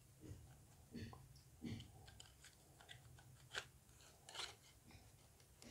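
Faint handling noises: scattered light clicks and rustles at irregular intervals as objects are moved about by hand.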